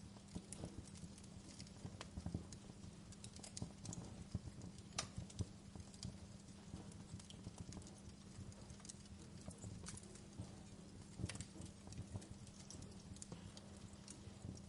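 Wood fire crackling in a fireplace: a steady run of irregular small pops and snaps, a few sharper, over a low rumble.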